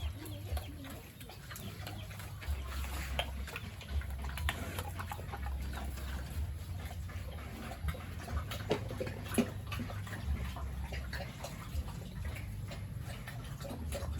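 Farmyard ambience: faint animal calls with scattered light knocks and clicks over a low rumble.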